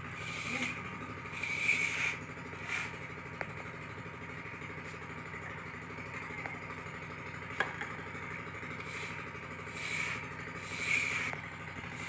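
Hands rubbing and tossing a dry, crumbly gujiya filling of roasted khoa, semolina and sugar in a large steel bowl: several soft gritty swishes, with a couple of light clinks of a small steel bowl against the big one. A steady low hum runs underneath.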